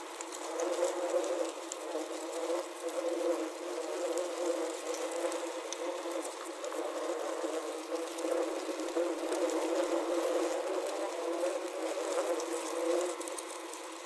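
Many wasps trapped inside a plastic wasp trap, buzzing in a steady, dense drone. The sound is picked up through a contact microphone clipped to the trap, with scattered light ticks of wasps striking the plastic.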